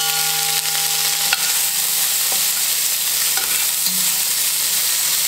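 Diced onion, celery and carrot sizzling in hot oil in an enameled Dutch oven as they are stirred around by hand, a steady frying hiss.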